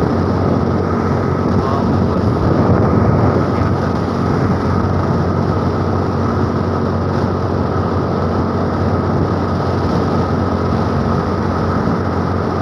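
Steady rush of wind and road noise while riding a motor scooter at speed, with the scooter's engine running evenly underneath.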